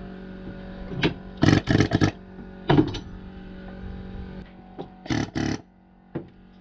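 Electric air compressor running with a steady hum, cutting out about four and a half seconds in. Over it come several short, loud clattering knocks from metal motor parts being handled on a steel bench.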